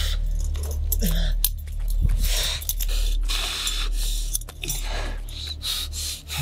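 A man's laboured breathing and gasps, about one breath a second, with a few short strained grunts, over a low steady hum.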